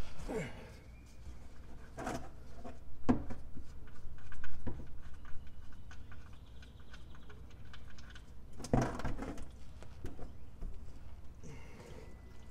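Scattered knocks, clicks and scrapes from a plastic oil drain pan being handled against a car's underside and the oil drain bolt being unscrewed by hand. By the end, engine oil is running out of the sump into the pan.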